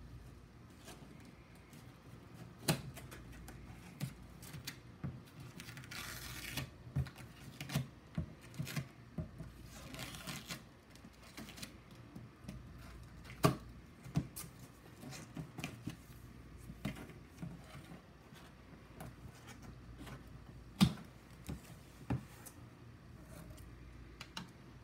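Cardboard delivery box being opened and unpacked by hand: scattered knocks and taps, two short stretches of rustling packaging about six and ten seconds in, and a few sharper knocks.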